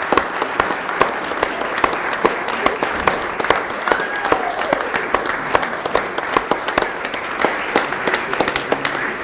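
Crowd of guests applauding, dense steady clapping throughout, with a brief voice calling out about four seconds in.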